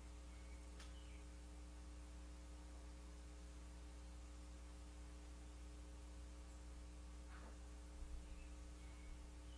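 Near silence: a steady low electrical hum under faint hiss, with a few faint short chirps.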